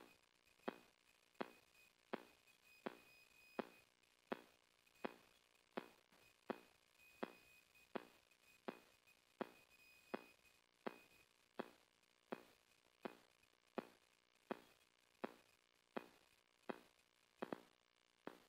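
Faint, sharp clicks at a perfectly even pace, a little under one and a half a second, like a steady ticking, with a faint high thin tone coming and going in the first half.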